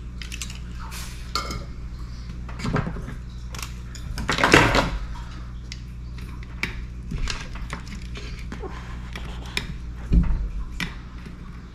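Metal hand tools clinking and clattering on a workbench, with scattered sharp clicks as small side cutters trim wire leads on a soldered perfboard. The loudest clatter comes about four and a half seconds in, and a sharp click near the end. A steady low hum runs underneath.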